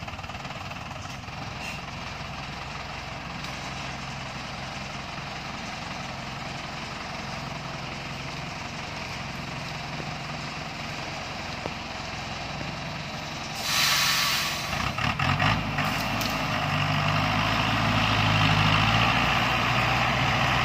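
Light truck's engine running steadily at low revs. About fourteen seconds in comes a short, loud hiss, then the engine revs up and holds a louder, heavier note as it pulls up the steep dirt slope.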